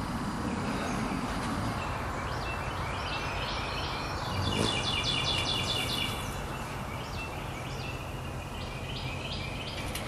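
Wild birds chirping and singing over steady outdoor background noise, with a quick run of repeated high notes about halfway through.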